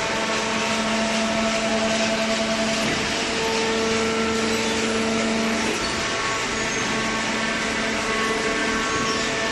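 Hydraulic scrap paper baler running: a steady motor and pump drone with a whining tone that comes in just after the start and drops away about six seconds in.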